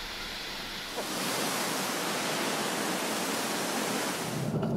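Steady rushing roar of a large waterfall, heard close up. It starts abruptly about a second in and cuts off suddenly near the end.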